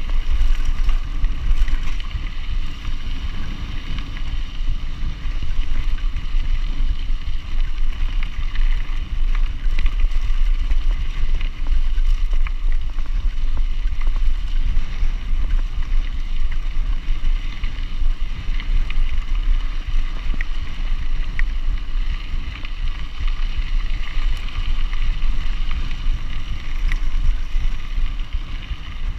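Steady low rumble and wind buffeting on a handlebar-mounted camera as a mountain bike rolls over a gravel track, with faint clicks here and there.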